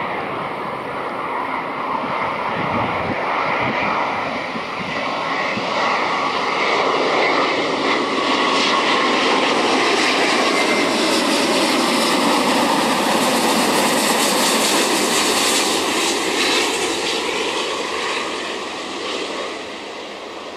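Airbus A350-900 airliner's Rolls-Royce Trent XWB turbofan engines at approach power, growing louder as it passes low over the camera and fading near the end as it descends toward the runway.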